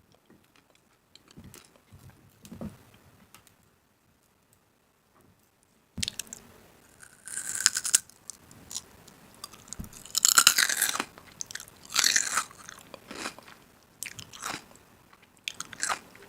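Crunching and chewing of crisp food close to the microphone: faint at first, then, after a silent pause, several loud crunchy bites of about a second each.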